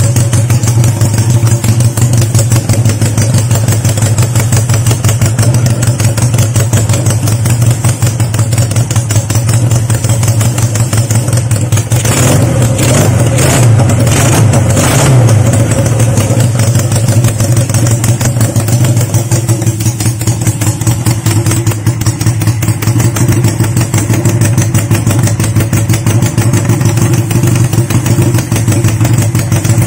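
Honda CB175's air-cooled parallel-twin engine idling steadily while warming up, with a few short revs about halfway through.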